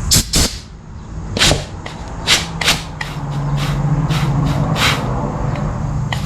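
A series of about ten short, sharp clicks and snaps at irregular intervals from handling 42RE transmission parts on the bench, with a low steady hum in the middle.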